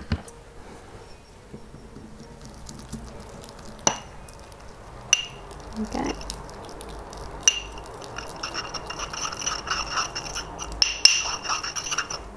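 Metal spatula stirring and scraping wet ultramarine blue pigment paste in a small glass beaker. A few separate knocks against the glass come first, then from about two-thirds of the way in the stirring turns near-continuous, with clinks that make the glass ring.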